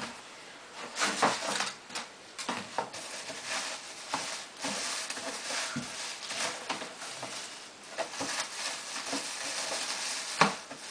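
Plastic bag wrapped around a television rustling and crinkling in irregular bursts as hands pull at it inside a cardboard box, with one sharper knock near the end.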